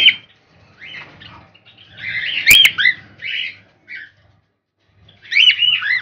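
Cockatiels chirping: short, gliding calls in three bouts, the loudest about two seconds in, with a single sharp click in the middle.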